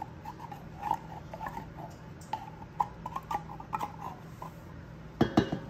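Thick sweetened condensed milk glugging and squelching out of a can into bread mixture in irregular little gulps. A few sharp knocks come near the end.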